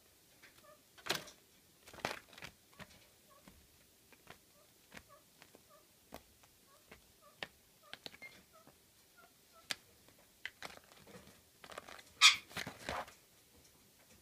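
A pet great spotted woodpecker scrabbling about and stashing a rusk: scattered taps, scratches and paper rustles, loudest about a second in, at two seconds, and in a cluster near the end.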